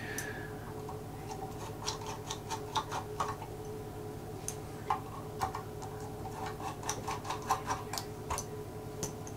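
Small, irregular metallic clicks and ticks of a screwdriver working the small screws out of a Ricohflex TLR camera's front panel, over a steady low hum.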